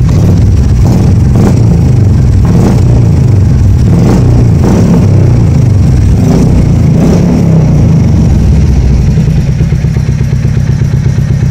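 Royal Enfield Classic 350's single-cylinder engine running through an aftermarket Dolphin silencer, blipped with the throttle several times, then settling back to a steady idle near the end.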